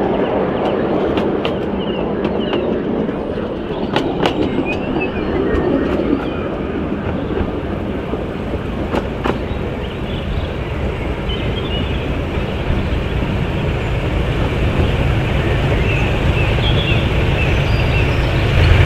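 Miniature railway carriages rolling past on 12-inch gauge track, with sharp clicks over the rail joints. In the second half, the diesel engines of two double-heading 4w-4w diesel-mechanical locomotives run steadily and grow louder near the end.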